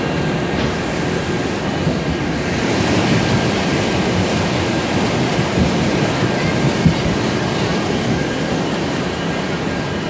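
Steady rushing and churning of water around a river rapids ride raft in the station channel, mixed with a low mechanical rumble, and a single knock about seven seconds in.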